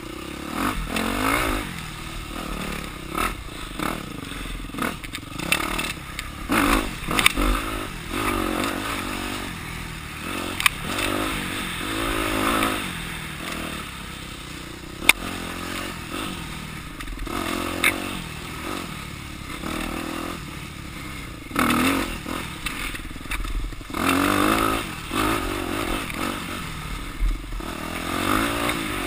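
Off-road dirt bike engine revving up and down over and over as it is ridden, with rattling and clattering knocks from the bike over rough ground and one sharp crack about fifteen seconds in.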